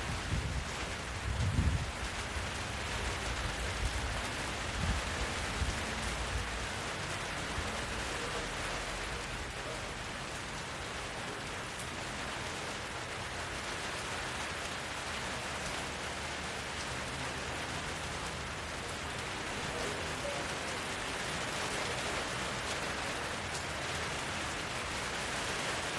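Steady rain falling, with a few low rumbles in the first several seconds.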